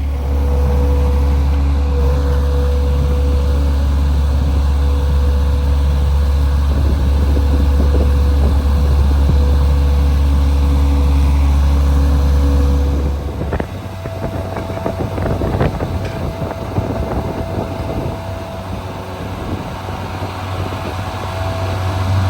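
Manitou 1500R skid steer's engine running loudly with a deep, steady drone. About two-thirds of the way through the sound changes to a rattly clatter with a higher whine, and the low hum rises again near the end.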